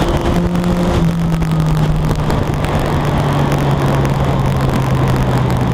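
Yamaha FZ-09's inline three-cylinder engine running at speed from the rider's seat, its pitch sliding slowly down as the revs drop, over heavy wind rush.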